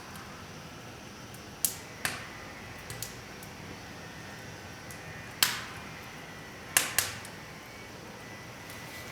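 Wood fire burning in a Ferlux C17 fireplace insert: a steady low hiss broken by sharp, irregular crackling pops, about seven in all.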